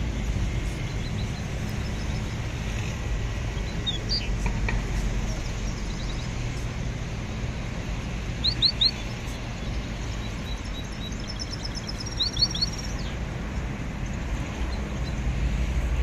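Caged songbirds chirping in short, quick runs of high notes, clearest about eight seconds in and again about twelve seconds in, over a steady low background rumble.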